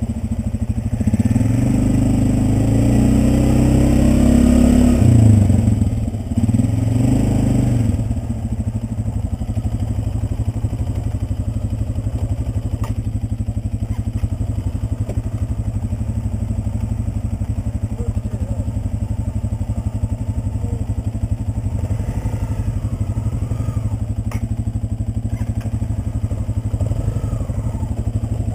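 Polaris Sportsman 400 ATV's single-cylinder four-stroke engine revving up and down under throttle, then settling to steady running at low throttle from about eight seconds in.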